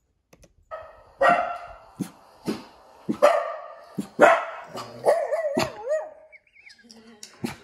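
Dogs, cockapoo type, barking in a string of loud barks, some short and sharp and some drawn out, with a wavering, drawn-out bark about five seconds in.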